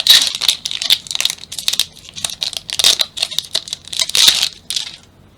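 Foil wrapper of a Pokémon trading-card booster pack being torn open and crinkled by hand, in a run of irregular crackling rustles that stops about five seconds in.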